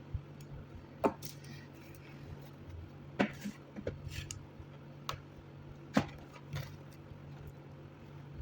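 Several sharp clicks and light knocks of small hard laptop parts being handled, the loudest about a second in, at about three seconds and at about six seconds, over a steady low hum.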